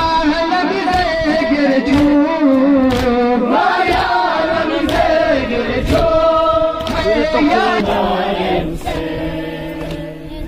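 A group of voices chanting a Muharram mourning lament (noha), with sharp strikes about once a second keeping time. The chant grows quieter near the end.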